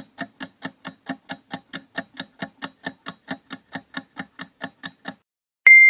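Quiz countdown-timer sound effect: a clock ticking evenly, about four to five ticks a second. The ticking stops about five seconds in, and a steady high beep starts near the end, signalling that time is up.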